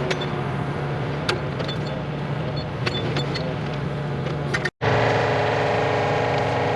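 An engine running steadily, with scattered sharp clicks and knocks over it. About four and a half seconds in the sound cuts out for an instant, then an engine runs louder and higher in pitch.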